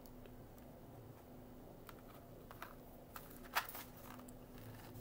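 Faint small clicks and handling noises, with one sharper, louder click about three and a half seconds in, over a faint steady hum.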